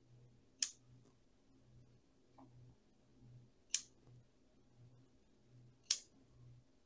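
Bonsai scissors snipping through Portulacaria afra (dwarf jade) shoots: three sharp snips, each a couple of seconds apart.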